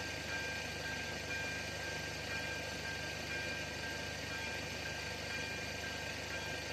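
Railway level crossing's electronic warning bell sounding continuously as a steady high ringing tone, with a steady low rumble underneath.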